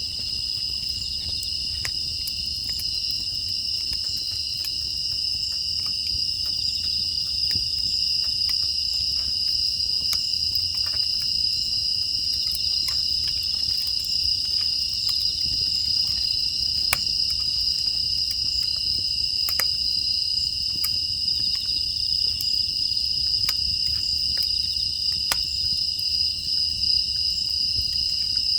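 A dense, steady chorus of crickets and other grass insects chirping, with scattered sharp crackles and pops from a wood fire burning in a furnace.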